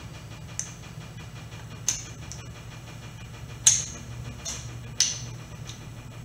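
Sharp metallic clicks and clinks of a wrench working the oil pan bolts, about seven at irregular spacing, the loudest a little past halfway. A steady low hum runs underneath.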